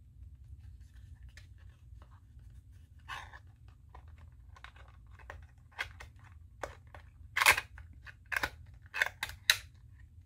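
Small cardboard ink box being handled and opened by hand: scattered short crinkles and scrapes of the card, with the loudest cluster of crackles in the last three seconds as the flaps are pulled open.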